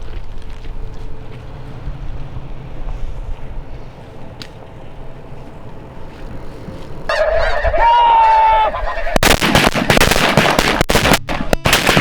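Low, steady wind-like noise, then snow geese begin calling about seven seconds in and swell about two seconds later into the loud, dense clamour of a large flock.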